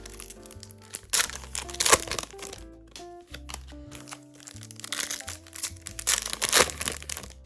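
Background music with sustained notes, over which foil trading-card booster packs crinkle as they are handled and torn open, with the loudest crinkling bursts about two seconds in and again near the end.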